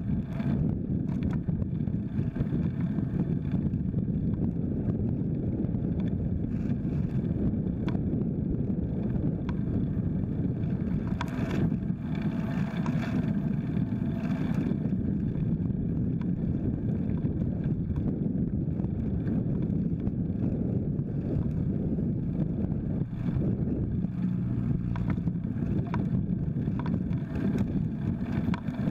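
Steady wind rumble on the microphone of a camera riding on a moving folding bike, mixed with road rumble from the tyres on concrete, with scattered light clicks and rattles.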